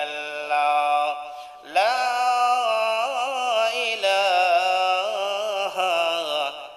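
A man chanting devotional verse in long, held melodic phrases with wavering ornaments, pausing for a breath about a second and a half in before sliding up into the next phrase.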